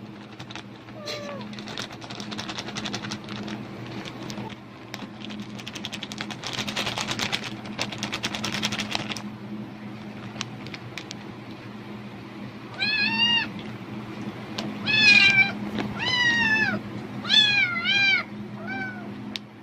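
Plastic bag crinkling and rustling for about nine seconds, then a domestic cat meowing five times, each meow rising and falling in pitch. The cat is reacting to the bag sound, which the uploader takes as the cat expecting food.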